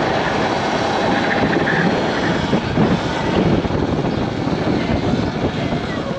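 Wind buffeting the microphone while riding at speed: a loud, steady rushing rumble with no clear motor pitch.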